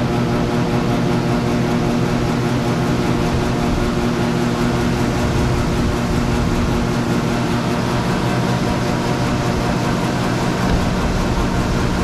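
Loud, steady machine hum at a constant pitch, with a hiss on top, holding unchanged throughout.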